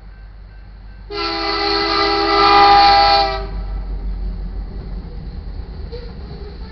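Air horn of a BNSF EMD SD70MAC diesel locomotive sounding one loud blast of about two seconds, starting about a second in, as it reaches the grade crossing. Then the locomotives and iron ore cars rumble past.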